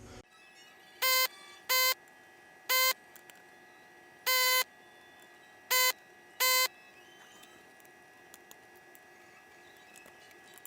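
Electronic beeper sounding six short beeps of the same pitch, spaced unevenly over the first seven seconds.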